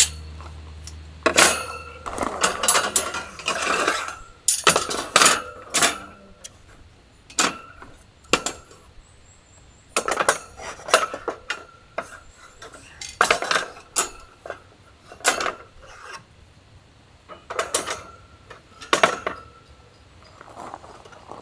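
Pearl Metal black metal stacking rack being unfolded and stacked: its wire legs and metal top knock together and against the wooden table in irregular clanks and clinks with short ringing.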